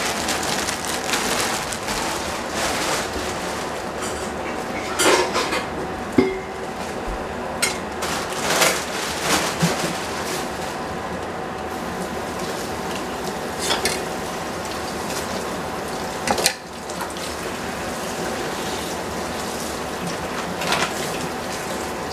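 Plastic produce bag crinkling and rustling as a cabbage is unwrapped, with scattered knocks and clatters of a cleaver and cutting board being handled and set down. A steady hiss with a faint hum runs underneath.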